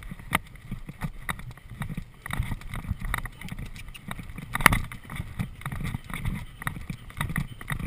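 Event horse's hooves thudding on grass turf at a cross-country gallop in a running rhythm, with one sharp click about halfway through.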